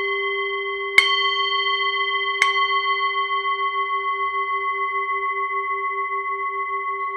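A bell-like metal chime struck twice, about one and two and a half seconds in, each strike ringing out into a long steady hum whose lowest tone slowly pulses.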